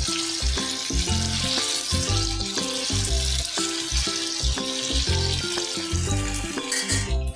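Masala-marinated chicken pieces deep-frying in hot oil, a steady dense sizzle of bubbling oil. Background music with a steady beat plays over it.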